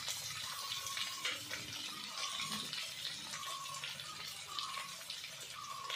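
Small whole potatoes frying in oil in an aluminium kadai, a steady sizzle, with a short faint tone repeating about once a second behind it.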